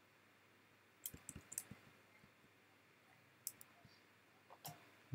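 Faint clicking of computer input while an animation is edited: a quick run of five or six clicks about a second in, then a few single clicks later, over near-silent room tone.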